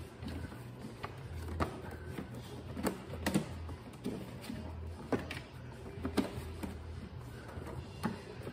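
Scattered clicks and light knocks of wires, plastic connectors and plastic covers being handled and pushed into place in a mower's battery compartment, at irregular intervals a second or so apart, over a low hum.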